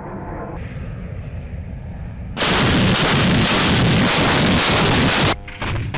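A steady rumble of aircraft engine noise, then, a little over two seconds in, a towed anti-aircraft gun opens fire: a very loud continuous burst lasting about three seconds that breaks off near the end.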